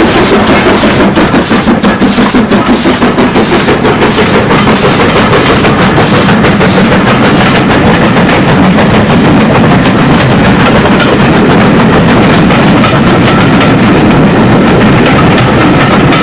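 LMS Stanier 8F 2-8-0 steam locomotive passing close and loud, its exhaust beating about three times a second. After about six seconds the beats give way to the steady rumble and clatter of its coaches rolling past.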